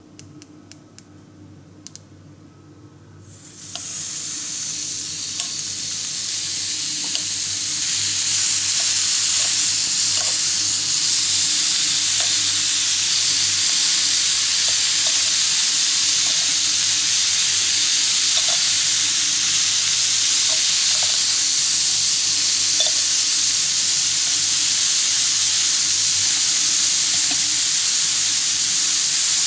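Thin slices of beef sizzling on a hot ridged grill pan. After a few clicks, the sizzle starts about four seconds in and builds over the next few seconds to a steady hiss with small pops.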